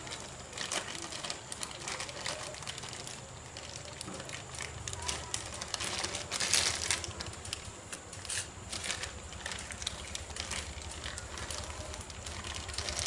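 Thin plastic bag crinkling and rustling in irregular bursts as hands work pieces of carp meat out of it. A low steady hum comes in about five seconds in.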